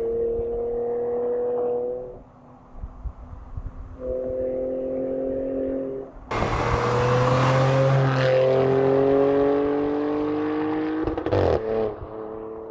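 Porsche Macan S V6 through an aftermarket valved exhaust, running at a steady drone, then accelerating hard about six seconds in, loud with the pitch climbing. A short sharp burst from the exhaust comes near the end before it settles back to a steady drone.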